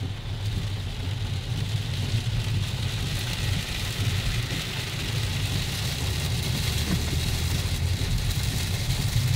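Car cabin noise while driving through heavy rain: a steady low rumble of engine and tyres on the wet road, with a hiss of rain and spray over it, growing slightly louder a couple of seconds in.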